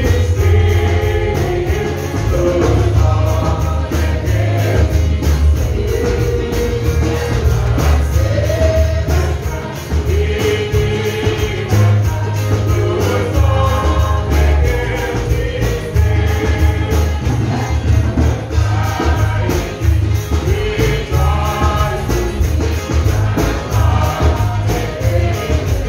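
Gospel song sung into microphones by a small group of singers, over an accompaniment with heavy bass and a steady beat.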